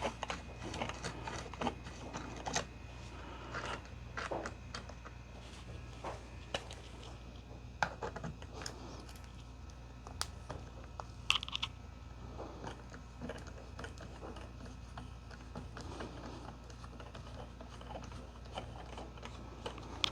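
Scattered light clicks and scrapes of a flathead screwdriver working the nose-cap screws out of a Finnish M39 Mosin-Nagant rifle, over a faint steady low hum.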